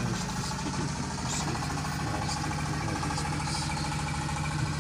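A steady engine hum, like a motor running at idle, held even throughout.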